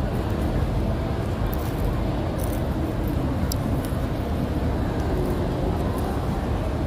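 Steady low rumble of city street traffic, with a few faint crinkles of plastic.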